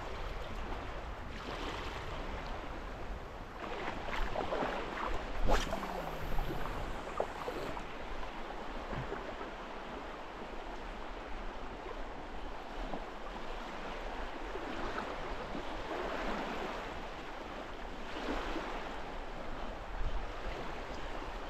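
Sea water washing and surging over shallow reef rocks in a running current, swelling and easing every few seconds, with a low wind rumble on the microphone. A sharp click sounds about five seconds in.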